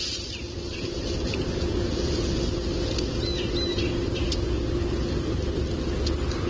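Outdoor ambience on a nest camera's microphone: a steady low rumble with a faint hum, and a few faint high bird chirps about three and a half seconds in.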